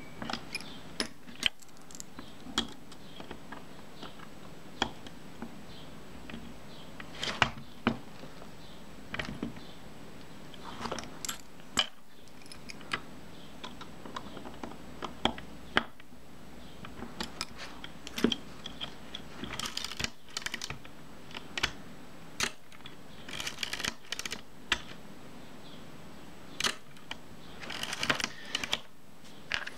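Small metal parts of a Kodak Retina Ia camera and steel tweezers clicking and tapping as they are fitted onto the camera's top plate: scattered single clicks at first, then quicker runs of clicks later on.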